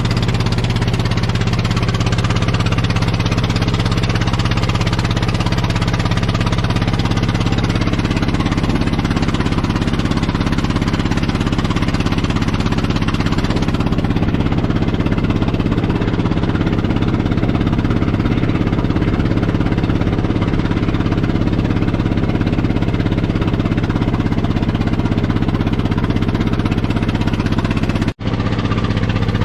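Old Caterpillar D8 bulldozer engine running steadily and loudly, with a fast, hammering beat. The sound drops out for an instant near the end.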